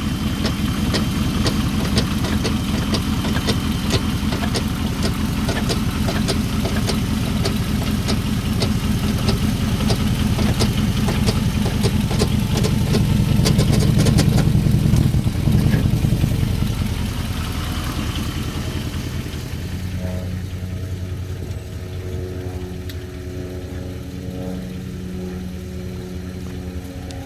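Chrysler 300C engine running with a sharp knock repeating about twice a second. After about 16 seconds it quietens and settles into a steadier idle hum.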